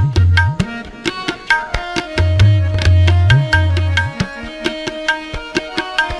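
Instrumental interlude of Sikh kirtan: tabla strokes over steady held harmonium notes, with the low bass drum notes bending upward in pitch.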